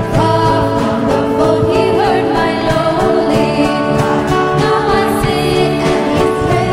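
Voices singing a gospel hymn with instrumental accompaniment, in long held notes.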